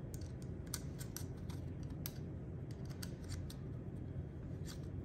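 Small, sharp metallic clicks, irregular and in little clusters, from a hex key turning and re-seating in small screws being threaded into a paintball marker's aluminium frame.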